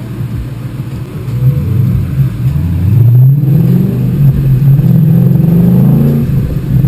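2011 Ford Mustang GT's 5.0 L V8 accelerating away from a stop through its manual gearbox, heard from inside the cabin. The engine note climbs in pitch and drops back several times as it is shifted up.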